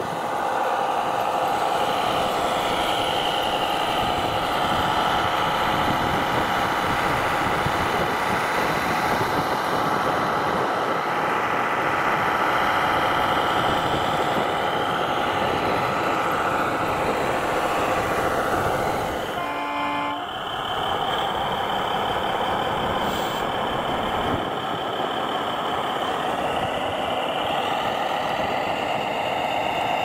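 Radio-controlled model heavy truck running, with a steady engine-like drone whose pitch rises and falls. A short horn toot sounds about twenty seconds in.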